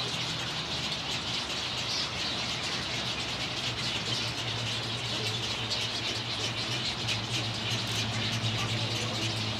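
Many nesting birds of a rookery colony calling at once, a dense, continuous chatter of overlapping high calls, over a steady low hum.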